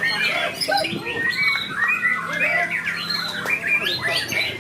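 Several white-rumped shamas (murai batu) singing at once, a dense, unbroken tangle of overlapping whistled phrases, trills and calls.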